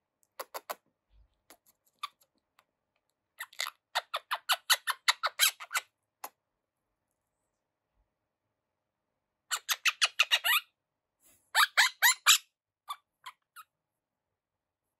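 Young monk parakeet (quaker parrot) chattering in quick runs of short, high chirps: a longer run a few seconds in, then two shorter runs close together later, with a few faint ticks in between.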